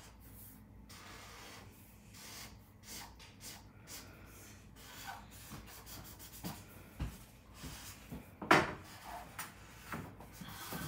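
Felt-tip marker scratching across paper in quick repeated back-and-forth strokes as an area is coloured in, with one louder knock about eight seconds in.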